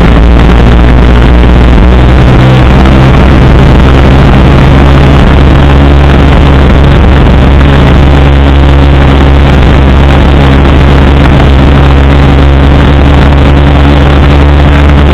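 Vehicle engine running at a steady speed with road and wind noise, heard through a camera mounted on the moving vehicle. Loud and unbroken, with a steady low drone.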